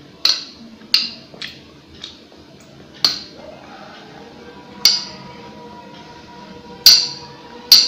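Metal spoon clinking and scraping against a glass plate while eating: about eight sharp, ringing clinks at irregular intervals.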